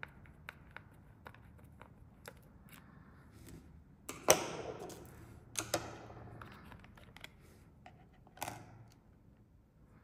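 Small screwdriver ticking in quick light clicks as it turns the battery-cover screw in a plastic toy RC car's chassis, then a sharp plastic clatter about four seconds in and a few more knocks as the battery cover comes off and things are handled on a wooden table.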